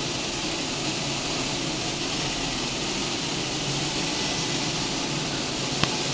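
Sesame colour-sorting machine running: a steady hiss with a low hum underneath, and one sharp click near the end.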